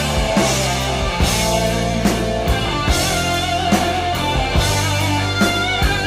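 Heavy metal band playing an instrumental passage: electric guitar holding long, bending notes over bass guitar and drums, with regular drum hits.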